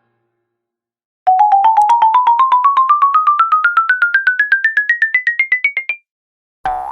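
Cartoon sound effect: a fast string of short pitched notes, about ten a second, climbing steadily in pitch for nearly five seconds. It starts about a second in. Just before the end a brief separate sound begins.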